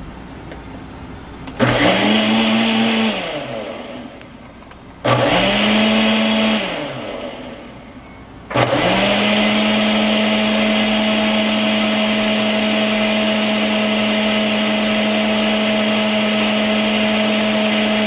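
Ninja Professional blender motor churning water and dish soap to clean the jar, whipping it to foam. It is first pulsed twice, each time spinning up and winding back down, then from about eight seconds in it runs steadily.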